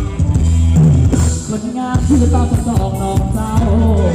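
Thai ramwong dance music from a band: a singer over a drum kit beat and a steady bass line.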